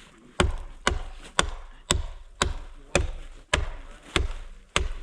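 Axe blows chopping into the trunk of a standing tree to fell it, a steady run of nine sharp strikes, a little under two a second.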